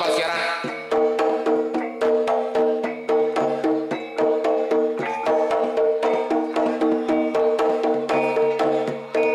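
Traditional Javanese percussion music playing for the tiban whip-fight: struck, ringing pitched tones over drum strokes in a steady, repeating rhythm of about one main beat a second.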